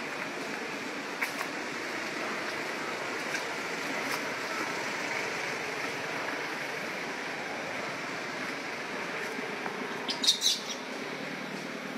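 A steady outdoor background hiss with a few faint clicks, and a brief cluster of high-pitched chirps about ten seconds in.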